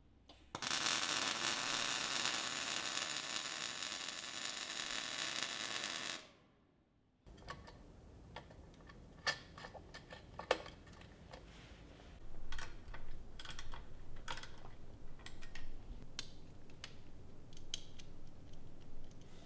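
MIG welding arc running steadily for about five and a half seconds, then stopping. After a short gap, scattered light clicks and taps of small parts and wiring being handled.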